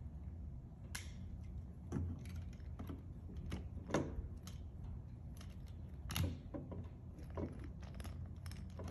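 Snap-together plastic pieces of a brick-built toy monster truck clicking and rattling as they are pulled apart and handled: light clicks at uneven intervals, about a dozen in all.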